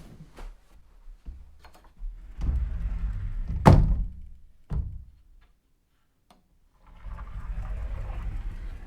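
Sliding closet door rolling along its track, a low rumble, then a sharp bang as it hits the end of its travel, followed by a smaller knock. After a short pause the door rolls along its track again.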